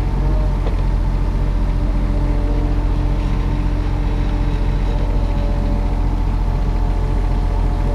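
Kubota mini excavator's diesel engine running steadily at constant speed, a low even drone with a faint steady whine above it.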